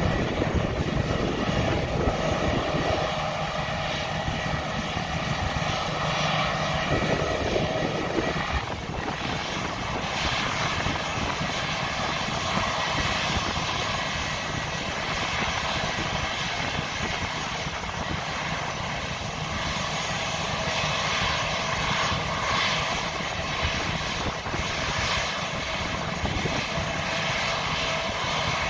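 Twin-engine jet airliner's engines running at idle on the ground after pushback: a steady roar with a high whine over it.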